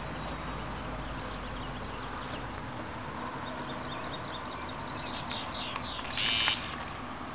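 Birds chirping in short, quick calls, with one louder, buzzy call about six seconds in.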